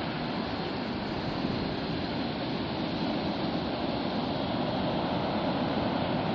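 Atlantic Ocean surf breaking and washing ashore, a steady wash of noise that swells a little in the second half.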